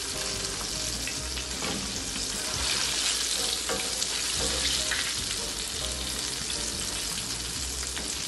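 Battered shark cubes deep-frying in hot oil: a steady sizzle, with a slotted spatula now and then knocking and scraping in the pan as the pieces are turned.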